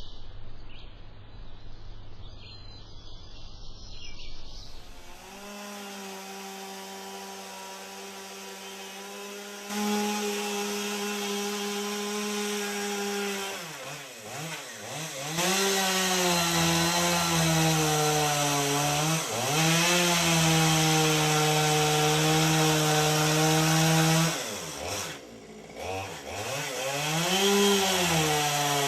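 A chainsaw starts running about five seconds in and is held at steady high speed. Its pitch dips and recovers several times, as the engine is loaded and eased.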